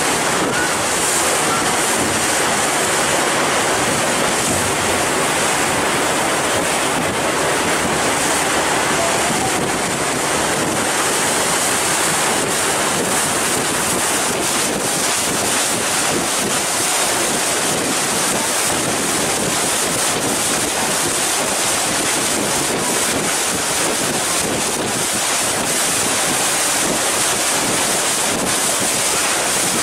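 Steady wind buffeting the microphone on a moving harbour ferry, mixed with the rush of water along the hull: a continuous, even noise with no breaks.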